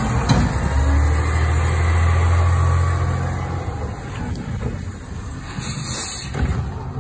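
Heil Half/Pack front-loader recycling truck with a Curotto-Can arm: the engine holds a steady low hum for about three seconds as the truck pulls ahead, then eases off. A short air-brake hiss comes about six seconds in.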